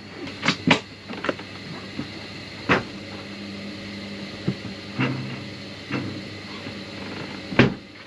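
Boat refrigerator's door opened, things inside handled, and the door shut again: a few scattered knocks and clicks, a sharp knock about three seconds in and a heavier thump near the end.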